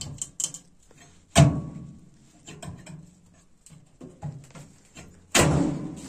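Metal oven door of a wood-burning kitchen stove banging shut, two loud clangs about a second and a half in and again near the end, each ringing briefly, with a few light clicks of the handle and latch between.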